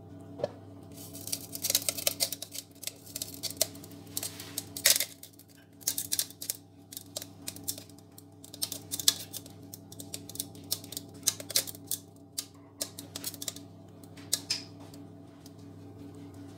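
Silicone spatula scraping thick cake batter out of a glass mixing bowl, a rapid run of clicks, taps and scrapes against the glass that dies away near the end, over soft background music.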